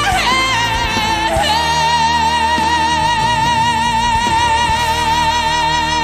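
A man singing one long, high held note with steady vibrato over a band accompaniment. A short downward slide in pitch leads into the note, which is held from about a second and a half in.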